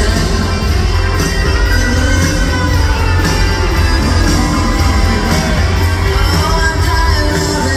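Live rock band playing at full volume, heard from the audience: a steady drum beat, heavy bass and guitars under a woman's singing.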